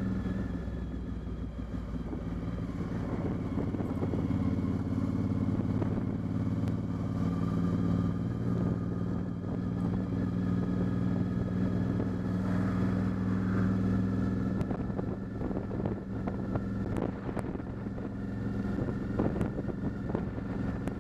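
Motorcycle engine running steadily while the bike cruises at low speed, heard from the rider's position. There are scattered short rustling noises in the second half.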